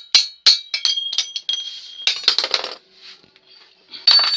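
Hammer strikes on metal knocking out a bicycle bottom bracket cup, each blow ringing, about three a second. About a second in they give way to a dense metallic clinking and clattering, with a short loud clatter near the end.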